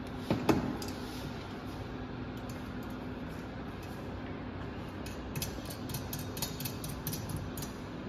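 Waveguide components of a microwave test bench being handled as the directional coupler's ports are interchanged: two sharp knocks about half a second in, then a run of light clicks and rattles in the last few seconds, over a faint steady hum.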